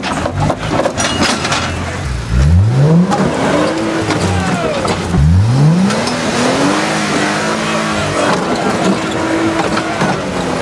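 Jeep Wrangler JK engine revving hard twice while rock crawling, climbing steeply about two and five seconds in and held at high revs. Sharp knocks come in the first two seconds.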